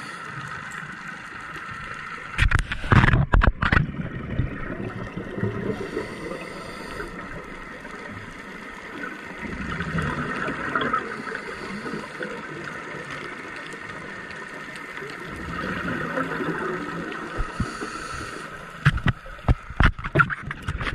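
Scuba diver breathing through a regulator, heard underwater: loud gurgling bursts of exhaled bubbles about three seconds in and again near the end, over a steady underwater hiss.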